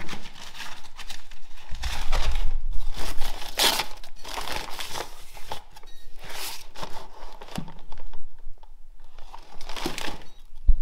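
Brown packing paper crinkling and rustling in irregular bursts as a brake disc is unwrapped in its cardboard box, with a few low bumps of handling about two seconds in.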